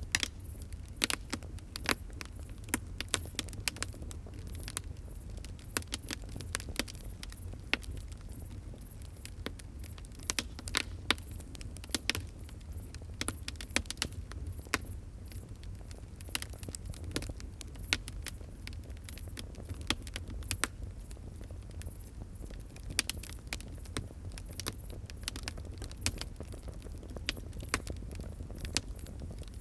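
Fire crackling: irregular sharp pops and snaps, several a second, over a steady low rumble of the flames.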